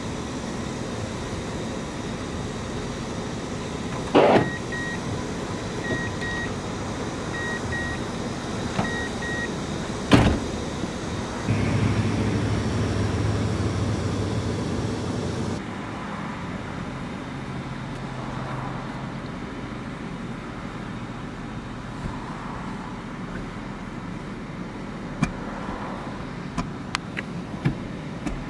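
Steady hum inside a pickup truck's cab, broken by two sharp clicks. Between the clicks comes a run of short, paired electronic beeps.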